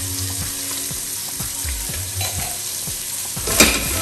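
Skin-on chicken thighs frying skin-side down in a hot pot, with a steady sizzle and crackle of fat. A single sharp knock about three and a half seconds in.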